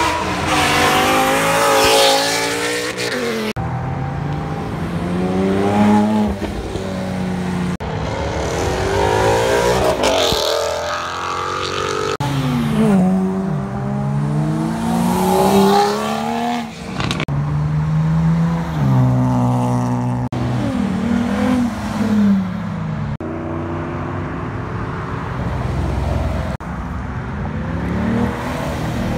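Sports cars, among them a Toyota GR Supra and a C8 Corvette, accelerating hard past one after another as they leave a car meet. Each engine note climbs under throttle and steps down at each gear change, about half a dozen pulls in all.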